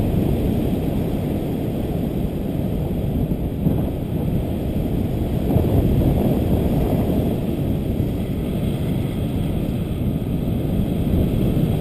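Steady rush of airflow buffeting the camera's microphone as a paraglider glides through the air, a low, even roar with no tones.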